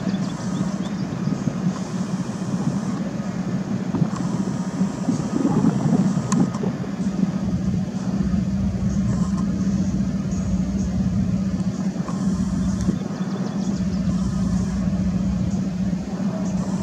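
Steady low mechanical hum of running vehicles, with a constant drone and an even background rush.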